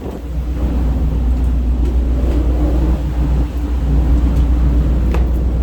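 Strong wind buffeting a phone's microphone: a loud, steady low rumble, with a faint steady hum beneath it.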